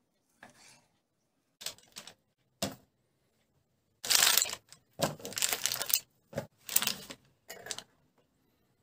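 Kitchen handling noises: a few short knife cuts through raw pork on a plastic cutting board, then from about four seconds in a louder run of rustles and knocks as the pork pieces are scooped off paper and dropped into a plastic tub.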